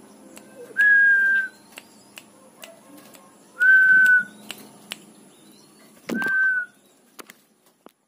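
A person whistling three short, steady notes on one level pitch, about two and a half seconds apart, with faint clicks between them and a low thump under the third note.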